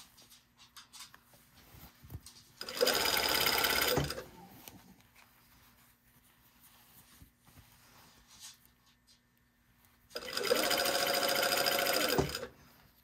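Industrial straight-stitch sewing machine stitching through knit fabric in two short runs, one of about a second and one of about two seconds, each quickly getting up to speed and then stopping abruptly. Between the runs there are faint small rustles as the fabric is turned and repositioned under the foot.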